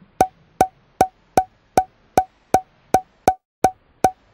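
Eleven identical, evenly spaced wood-block-like clicks, about two and a half a second, all at the same pitch: a repeating click sound effect.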